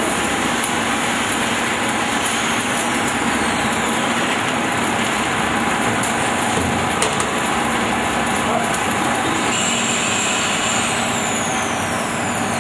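Steady noise of plastics-factory machinery running around an extrusion blow molding machine, with a faint high tone coming in near the end.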